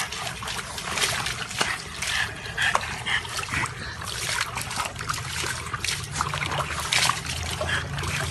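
Water splashing and trickling in quick, irregular spurts.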